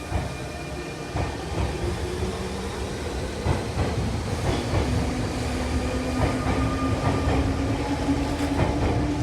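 Nankai electric train running on the rails, a steady rumble with wheels clicking over rail joints, growing slowly louder. From about halfway a faint hum comes in and rises slightly in pitch.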